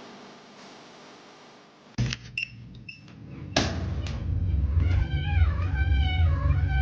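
A cat meowing several times, starting a little past halfway through, after a few sharp knocks; a low rumble runs underneath.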